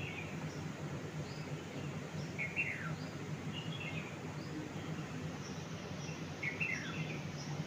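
Small birds chirping in short, sharp calls and quick falling phrases, one every half second to a second, over a steady low hum.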